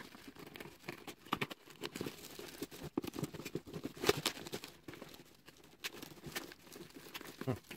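Packing tape and a plastic bubble-wrap mailer being picked at, cut and peeled open by hand: irregular crinkling, crackling and small tearing sounds with scattered light clicks.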